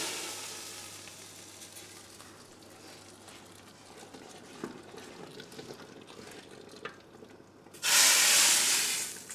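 Hot ghee tadka with whole red chillies, coriander and cumin sizzling as it hits the boiling dal; the first sizzle dies away within the first second or two. A wooden ladle stirs with a few light knocks, and near the end a second loud sizzle lasts about a second and a half as the rest of the tadka is scraped from the pan into the pot.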